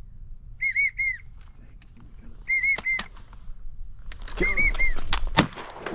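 Wigeon whistles: three bursts of three quick whistled notes, about a second in, about two and a half seconds in, and near the end, the last one over a rushing sound.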